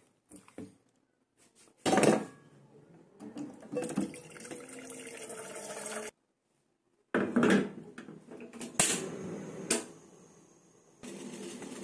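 Kitchen cooking sounds: utensils clinking and scraping against a pot, with a few sharp knocks. The sound drops out completely for about a second midway.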